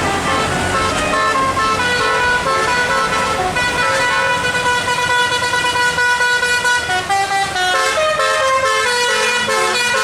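Bus 'telolet' musical air horn playing a tune: long held notes at first, then from about seven seconds in a quicker run of short notes stepping up and down in pitch.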